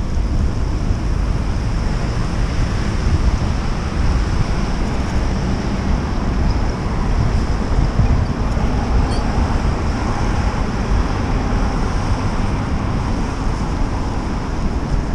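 Wind buffeting the microphone of a moving bicycle over steady street and traffic noise, a constant low rumble with a hiss above it.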